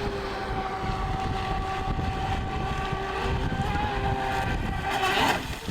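Remote-control boat motor whining steadily, its pitch wobbling slightly with the throttle, over wind rumble on the microphone.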